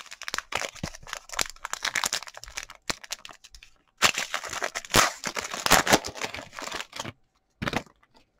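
Foil wrapper of a Donruss football card pack crinkling and tearing as it is ripped open, in two spells of dense crackling, the second louder, with a short crinkle near the end.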